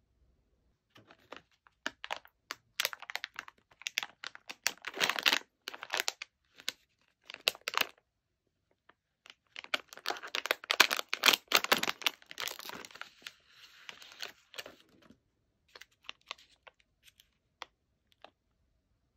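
Snack packaging crinkling and tearing as it is handled and opened, in irregular bursts of rustle and sharp crackles, thinning to a few light clicks near the end.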